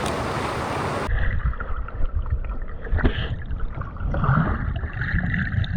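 Moving river water and low rumbling on the camera microphone. About a second in, the sound suddenly turns dull and muffled, with a few faint knocks.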